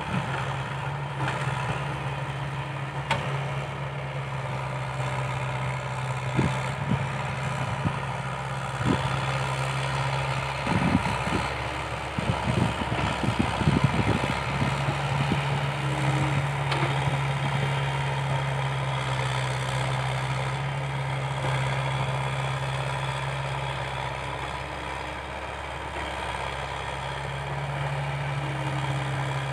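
Komatsu hydraulic excavator's diesel engine running steadily as it digs and loads soil. Its low drone breaks up and grows louder for a few seconds around the middle, with a few knocks.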